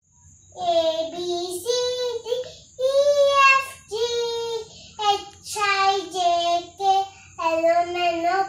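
A young girl singing on her own without accompaniment, a run of held sung syllables with short breaks between them.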